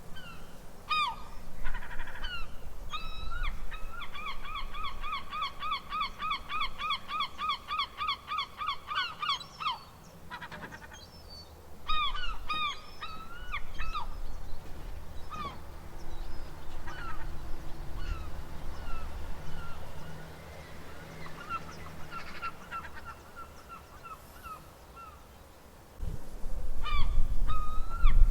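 Gulls calling: a long, fast series of repeated yelping calls, about four a second, for several seconds, then scattered single calls, a short lull, and loud calls starting again near the end. A low rumble runs underneath.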